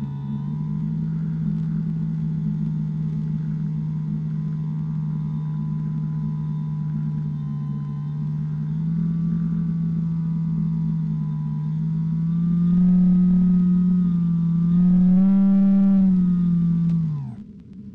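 Electric motor and propeller of an FPV RC airplane, a steady pitched drone. It grows louder and slightly higher twice in the last few seconds, then winds down with falling pitch and stops near the end as the throttle is cut for landing.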